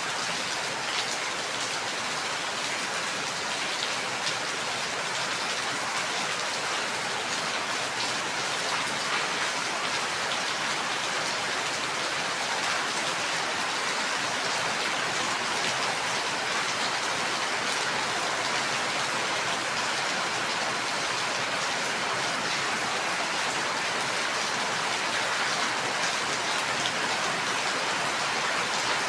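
Steady rain falling, an even hiss of many drops with fine pattering ticks and no thunder.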